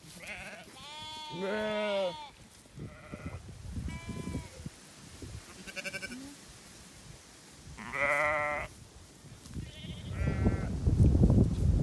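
Sheep bleating in a flock: several wavering calls, one after another, the loudest about a second in and about eight seconds in. Near the end a loud rustling noise takes over.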